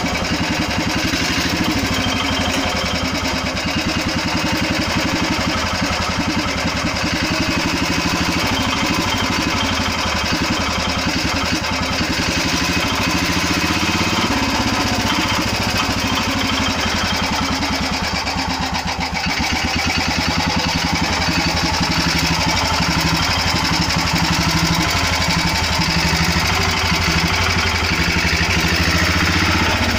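Small single-cylinder Ratna diesel engine in a roundtank-style motorcycle, running steadily with a fast, even chugging beat.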